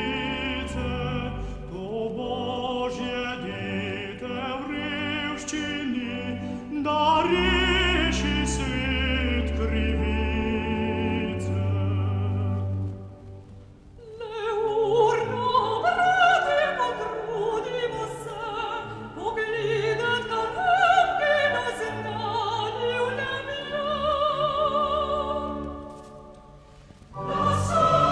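Recorded sacred Christmas song: a tenor soloist sings slow phrases with strong vibrato over orchestral accompaniment. The music dips briefly about halfway through and again near the end, where it comes back in with a full choir.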